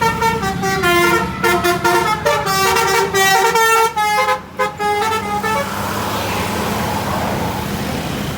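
Bus telolet horns (Basuri multi-tone air horns) playing a quick jingle of changing notes for about five and a half seconds, then stopping, with the bus's engine running steadily underneath.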